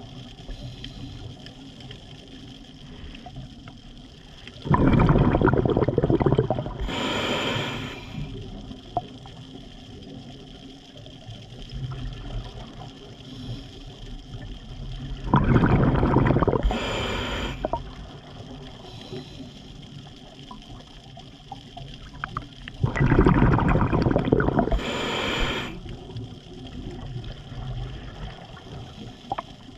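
Scuba diver breathing through a regulator underwater: three breaths, roughly every nine seconds. Each is a loud bubbling rush of air followed by a shorter, higher hiss, with a steady faint underwater hiss between breaths.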